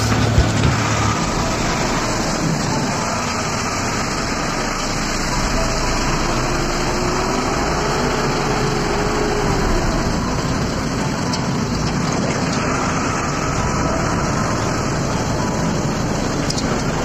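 Vehicle driving on a dirt road, heard from inside with the window open: engine, tyre and wind noise blended into a steady rush.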